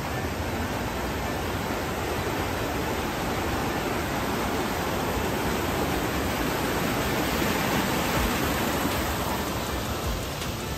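Steady rushing noise, a little louder about eight seconds in.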